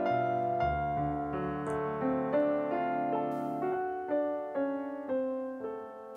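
Background piano music: single notes played one after another at an unhurried pace, about two a second, each ringing and fading away.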